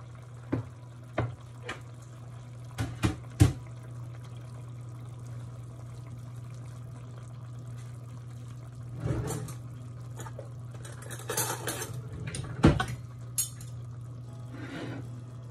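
Dishes and utensils clinking and knocking against a stainless steel cooking pot, as a handful of scattered sharp clinks with a couple of short clattering stretches later on, over a steady low hum.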